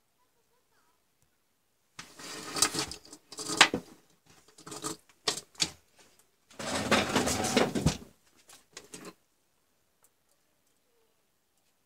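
Clattering and rustling of motor parts and a screwdriver being handled and set down on a workbench, in several irregular bursts.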